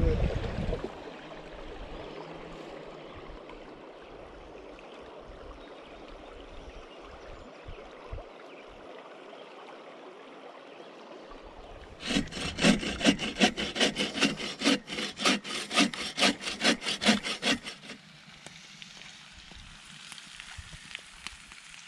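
Steady rush of river water, then a hand saw cutting wood: quick back-and-forth strokes, about three a second, for some six seconds before stopping.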